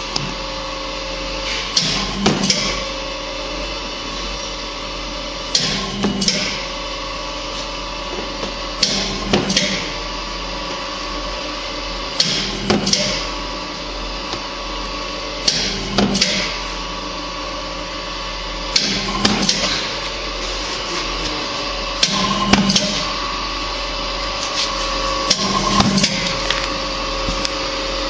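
Electric pizza dough divider running: a steady motor hum, broken about every three seconds by a short clatter of metal knocks as each cycle portions the dough.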